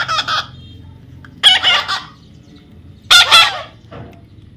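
Three loud, short bird calls, each about half a second long and roughly a second and a half apart.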